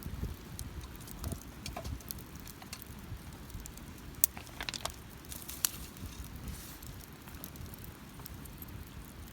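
Wood campfire crackling, with scattered small pops and two sharper snaps near the middle, over a steady low rumble.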